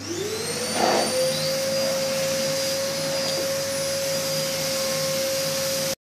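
Samsung SC8870 bagless cyclone canister vacuum cleaner starting up. Its motor whine rises in pitch over about the first second, with a short louder rush of air about a second in. It then runs steadily with a high whine over a rush of air, and cuts off suddenly at the end.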